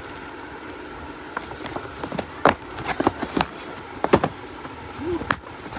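Cardboard bangle boxes and their plastic covers being handled. Irregular taps, knocks and crinkles begin about a second and a half in, over a steady room hum.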